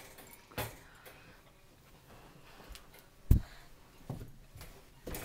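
A few scattered light knocks and rattles from a wire pet crate being handled by a toddler, with one louder thump a little over three seconds in.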